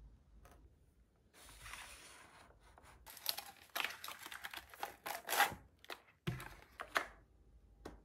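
Paperboard package of a microwave pad thai meal kit handled by hand: rustling and crinkling with sharp crackles, and a dull knock about six seconds in.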